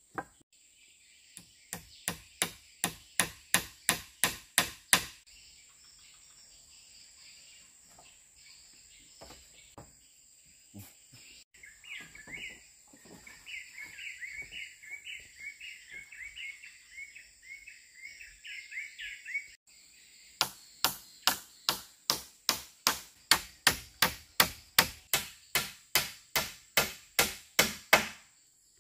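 Two runs of quick, evenly spaced blows of a hand tool on wood, about three a second: about a dozen in the first few seconds, then a longer run of about two dozen near the end. Between the runs a bird sings a warbling song, over a steady high insect drone.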